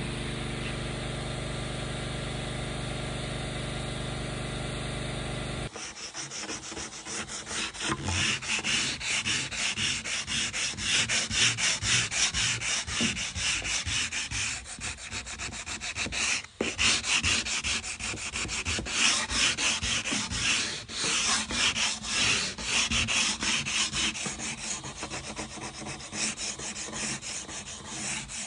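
Sandpaper rubbing on wood in rhythmic back-and-forth strokes, hand sanding a fluted column smooth so no sander lines show under the stain. Before the sanding, a steady machine hum stops abruptly about six seconds in.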